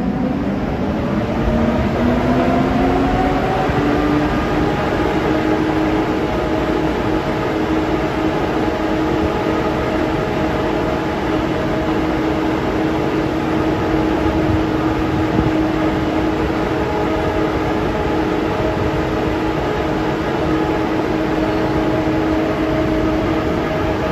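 ICE 1 (class 401) power car humming at close range: its blowers and traction electrics give a whine of several tones that rises over the first few seconds and then holds steady over a low rumble.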